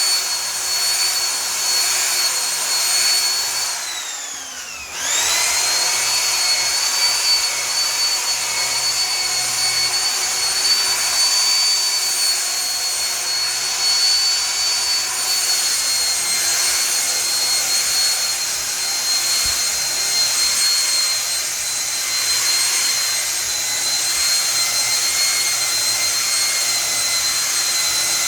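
Electric paint polisher running with a steady high whine while buffing fine polish into clear-coated paint; about four seconds in it winds down almost to a stop, then spins straight back up to speed.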